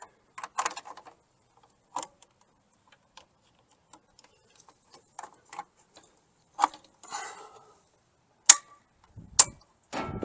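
Scattered small clicks and knocks of a circuit breaker being handled and snapped into a breaker panel, with two sharp, loud clicks near the end.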